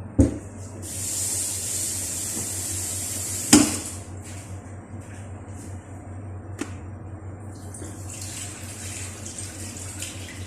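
Water running from a kitchen tap, loudest for the first few seconds and then running on more softly, with a sharp knock about three and a half seconds in and a lighter click later.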